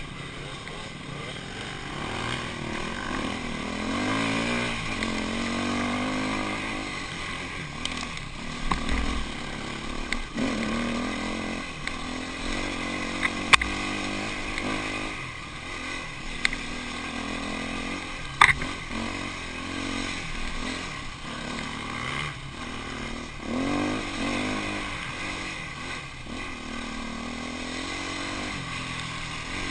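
Off-road motorcycle engine revving up and down as it climbs a rough dirt trail, with sharp knocks twice in the middle.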